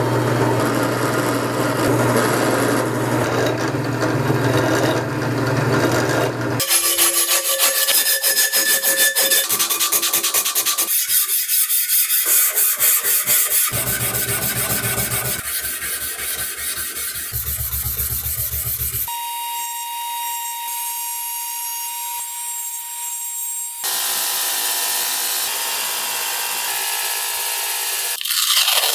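Abrasive rust-removal work on an old cleaver's metal blade: rubbing, filing and sanding sounds in several segments that change abruptly, one of them with a steady high whine.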